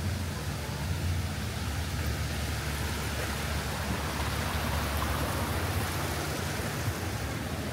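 Steady rushing noise with a strong low rumble, growing a little louder and brighter in the middle.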